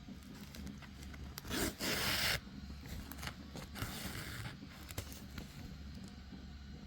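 Two bursts of scraping: a loud one about a second and a half in and a weaker one near the middle, with a few small clicks around them.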